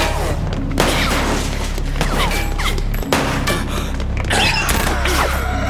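Tense action score with a steady low bass, cut through by a rapid run of gunshots and sharp impacts.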